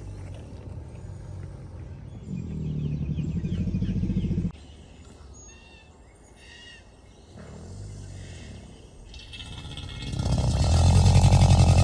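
Male American alligators giving their mating call, deep rumbling grunts. One starts about two seconds in and lasts a couple of seconds, a fainter one comes around eight seconds, and the loudest swells up from about ten seconds on. Birds chirp in the gaps between calls.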